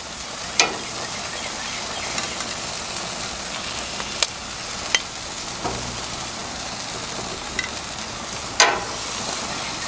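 Chicken drumsticks sizzling steadily on a hot gas grill, with a few light clicks and taps and one louder knock near the end.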